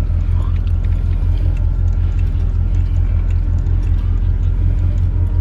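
Chevrolet Monte Carlo SS Aerocoupe's V8 engine idling: a loud, steady deep rumble with an even pulse.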